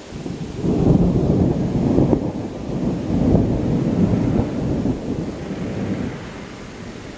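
Rolling thunder: a low rumble swells in within the first second, rolls on with several surges, then dies away over the last second or two.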